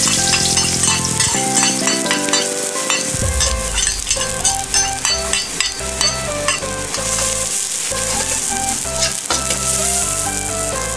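Chopped onions sizzling as they fry in hot oil in a steel wok, with a metal wok ladle scraping and stirring them. The sizzle grows brighter from about seven seconds in.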